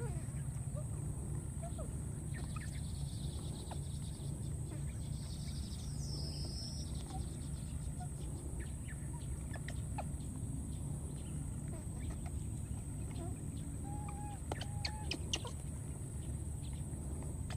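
Outdoor ambience with chickens clucking now and then, a few short calls a little before the end, over a steady low rumble and a steady high hum.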